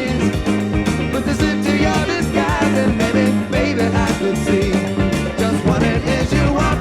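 Band music from a 1979 dance recording: a steady beat over a bass line with guitar and other instruments, and some singing.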